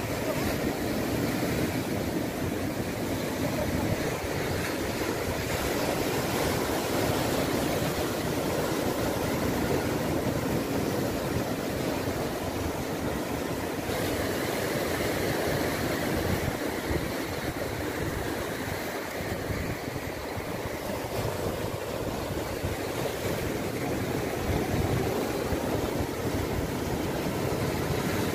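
Sea surf breaking and washing over shoreline rocks: a steady rushing noise.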